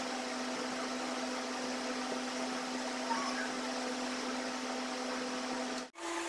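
Steady low hum with a constant hiss, like a fan or appliance motor running in a small room. Near the end it cuts out for a moment and comes back with the hum slightly higher.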